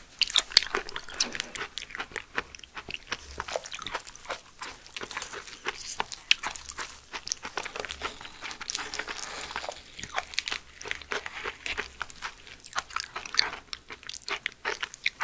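Close-miked chewing of slippery raw aloe vera gel: many quick, irregular wet mouth clicks and smacks. About eight seconds in, a metal spoon scrapes gel from the aloe leaf.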